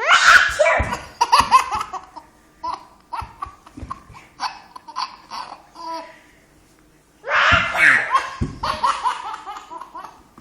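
An 11-month-old baby's belly laughter, in two long bouts that each start abruptly, near the start and about seven seconds in, with shorter giggles between them.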